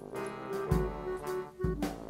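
Background music: a light instrumental tune with a melody over low drum hits about once a second.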